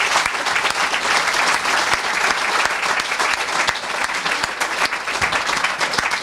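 Audience applauding: many hands clapping at once, loud and steady.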